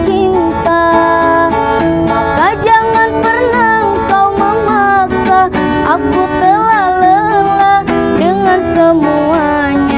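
Live busking music: an acoustic guitar strummed under a wavering melody line with vibrato.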